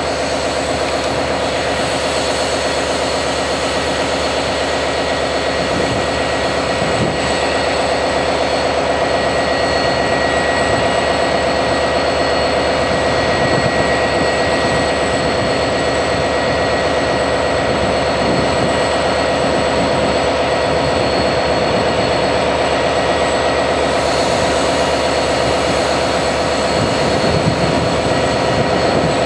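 A steady, unbroken machine drone with constant humming tones.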